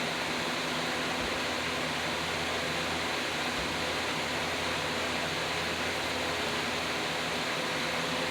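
Steady hiss with a faint low electrical hum underneath.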